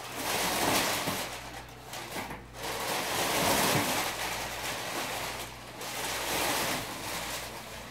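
Crumpled brown packing paper rustling and crinkling as it is pulled out of a large cardboard box, coming in about three long swells.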